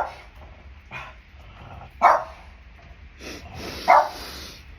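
A dog barking: a few short, sharp barks spaced about one to two seconds apart.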